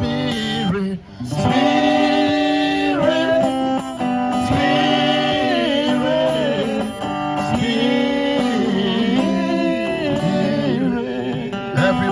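A worship song: a voice singing long, held notes over an acoustic guitar.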